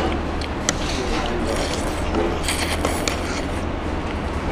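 Steady low hum of background noise in a small eatery, with a single sharp click a little under a second in and light clatter from the table.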